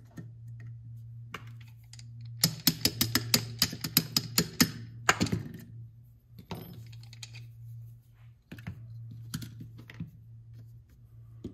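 A quick run of about a dozen sharp small clicks of pistol parts being handled and taken apart on a workbench, followed by scattered clicks and light knocks, over a steady low hum.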